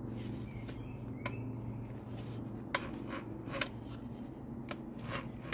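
Scooter belt-drive variator pulley turned by hand to rotate a just-freed, formerly seized 125 cc engine: a handful of scattered metallic clicks and ticks from the pulley and drive parts. A low steady hum runs underneath.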